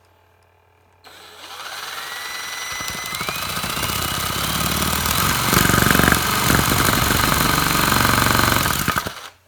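An electric drill driving a Lego chainsaw's crankshaft: the motor whine rises as it spins up about a second in, then the plastic Lego blade and linkage rattle rapidly back and forth, growing louder, until the drill stops suddenly near the end.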